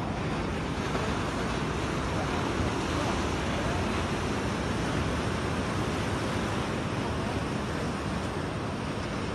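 Sea surf washing steadily against rocks, with wind on the microphone.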